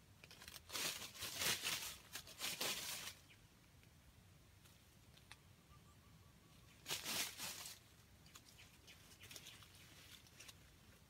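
Rustling in dry leaf litter as a wild junglefowl rooster moves through it, in two bouts: one of about two seconds near the start and a shorter one about seven seconds in, followed by faint scattered crackles.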